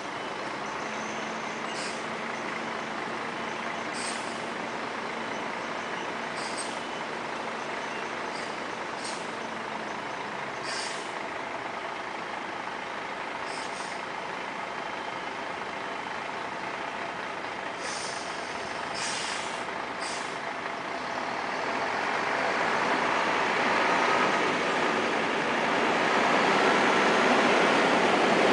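Volvo B10M articulated bus's 340 hp electronically controlled diesel engine running as the bus manoeuvres, getting steadily louder over the last several seconds as it comes close. Short, sharp air hisses from its air brakes come every second or two during the first two-thirds.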